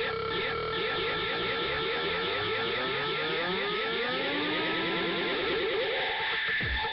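Electronic dance music: a rapidly repeating synth pattern of sliding pitch sweeps.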